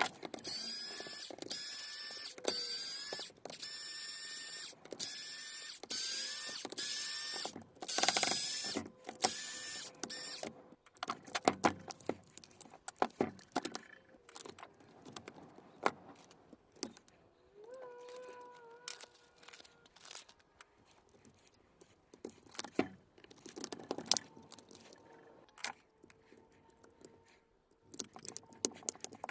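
A cordless power tool's motor runs in about ten short trigger bursts of under a second each. After that come scattered clicks, taps and knocks of small parts being handled.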